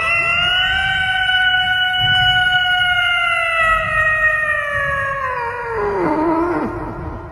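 A domestic cat's long, drawn-out yowl: one continuous call that slowly falls in pitch, then drops lower near the end before it stops.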